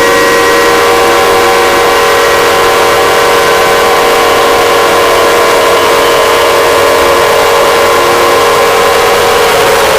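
Mock emergency-alert alarm, loud and heavily distorted: a dense cluster of steady, clashing tones held without a break over a harsh noise layer.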